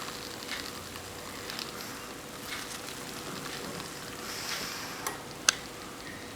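Egg beater blending egg yolks into whipped whites in a bowl, with scratchy, irregular strokes and one sharp click about five and a half seconds in.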